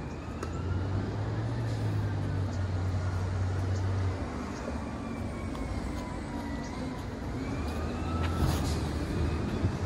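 Motor vehicle engine running, a low steady drone that swells about a second in and again near the end, with a faint whine sliding slowly up and down in pitch.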